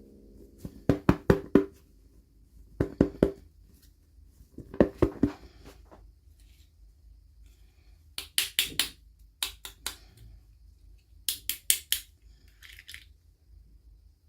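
Bursts of quick clicks and taps from hands working small plastic toy pieces or packaging, in groups of three to five strokes every second or two. The first few groups carry a short ringing tone; the later ones are sharper and brighter.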